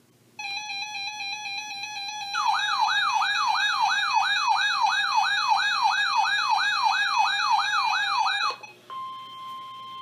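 Weather alert radios going off for a severe thunderstorm warning: a steady alert tone starts, and about two seconds in a fast warbling siren joins it at about two and a half sweeps a second. Both cut off suddenly near the end, and a single plain steady tone begins, the NOAA Weather Radio warning alarm tone.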